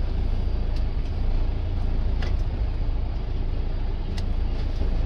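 Semi truck's diesel engine running, a steady low rumble heard from inside the cab, with a few faint clicks.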